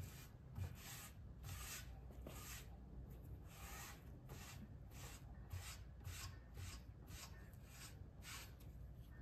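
Cloth rag rubbing wipe-on polyurethane into a wooden board: faint, repeated hissing strokes, about two a second.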